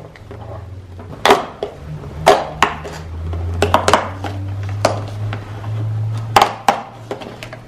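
An advent calendar's day compartment being opened by hand: a string of sharp clicks and taps, about eight of them, with handling rustle over a low hum.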